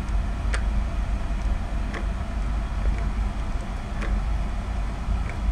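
Steady low rumble with a faint click about every one and a half to two seconds, as the Singer 111W153 walking-foot sewing machine's mechanism is worked by hand.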